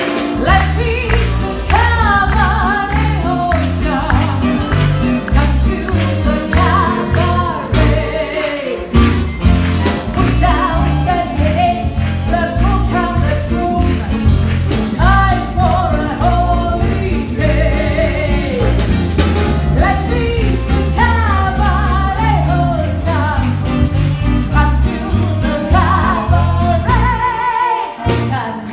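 Live band of piano, violin and drum kit playing an upbeat number with a singer's voice over a steady bass and drum beat. The music breaks off briefly near the end.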